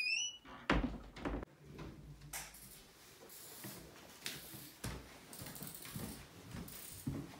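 A door hinge squeaks briefly, stepping up in pitch, then two heavy thuds and a run of soft footsteps.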